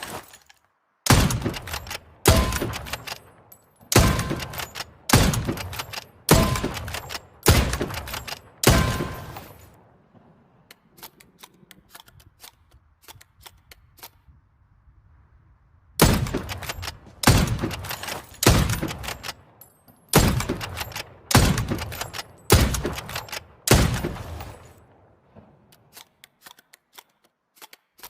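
Hunting rifle shots: seven loud shots roughly a second apart, each fading out over about a second. After a pause holding only small clicks and knocks, a second string of seven shots follows, then more small clicks.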